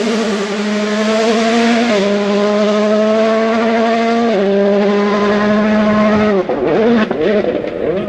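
Rally car engine at high revs, holding a near-steady pitch through two quick gear changes about two and four and a half seconds in. About six and a half seconds in it comes off the throttle, the revs dropping and rising unevenly with sharp cracks.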